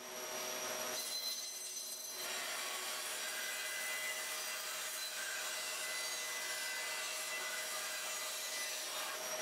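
Bandsaw running and its blade cutting steadily through a glued-up walnut panel: an even sawing hiss with a constant whine from the machine.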